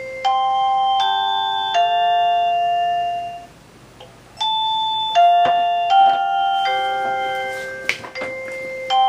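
1byone video doorbell chime playing its multi-note ding-dong melody over and over. One tune dies away about three and a half seconds in and the next starts about a second later, with a couple of sharp clicks in the second half.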